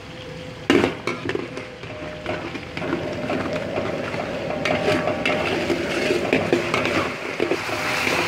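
Stainless-steel ladle clanking and scraping against an aluminium wok as a thick chilli-tomato sauce is stirred, starting with a sharp knock about a second in. Hot oil frying sizzles steadily underneath, growing a little louder near the end.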